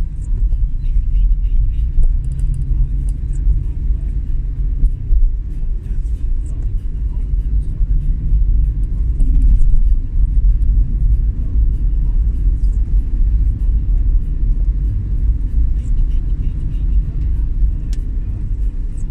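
Steady low rumble of a vehicle driving on the road.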